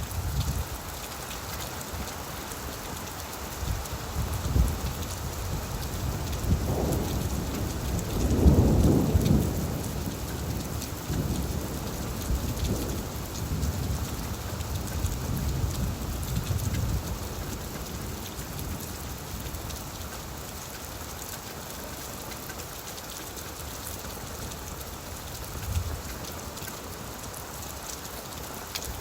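Steady rain falling on leaves, with low rumbling swells underneath, the loudest about eight to ten seconds in.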